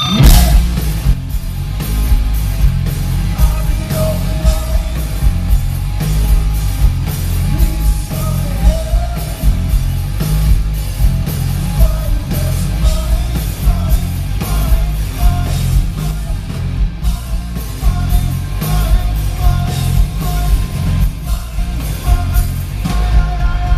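Live rock band playing loud: electric guitar, heavy bass and drums under a male lead vocal, which comes in about four seconds in.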